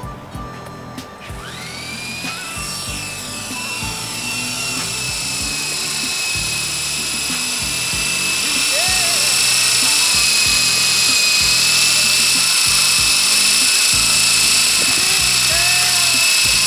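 Blade 120SR electric RC helicopter spooling up: a high whine from its motor and rotor starts about one and a half seconds in, rises in pitch, then holds steady and grows louder until about halfway through, where it stays as the helicopter hovers. Music plays underneath.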